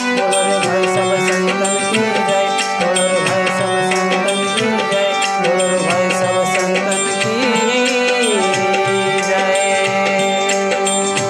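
Instrumental Hindu devotional music: a held melody over a steady drone, with tabla keeping time.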